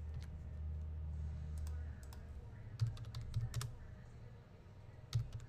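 Scattered keystrokes on a computer keyboard, a few sharp clicks a fraction of a second apart, with a steady low hum that stops about two seconds in.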